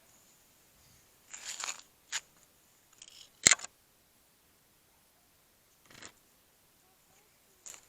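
A few scattered clicks and rustles with quiet gaps between them. The loudest is a single sharp click about three and a half seconds in.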